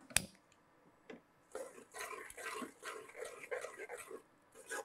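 A spoon scraping and stirring inside a pressure cooker pot as grated jaggery is added to mashed urad dal: a sharp clack near the start, then about three seconds of irregular scraping.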